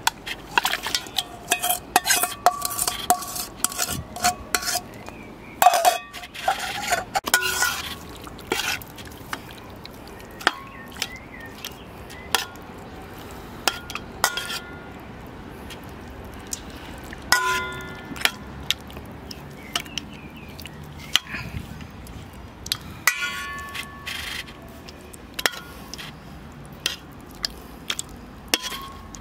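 Metal spoon scraping and clinking against enamel bowls, each clink ringing briefly: marinade scraped out of a small bowl, then raw fish pieces turned in it. The clinks come quickly for the first several seconds, then sparser.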